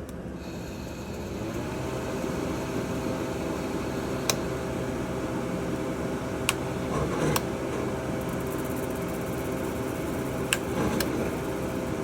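Margarita mixer's motor starting up and running with a steady hum, powered through its newly fitted three-way switch. A few sharp clicks sound over the hum.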